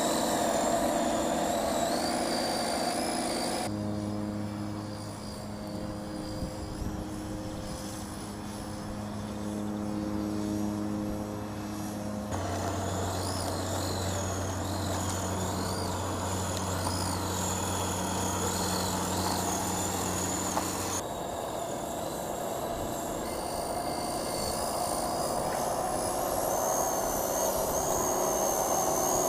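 Home-made steel RC logging truck driving, its motor and gears giving a steady whine that changes pitch abruptly a few times. Birds chirp in the background.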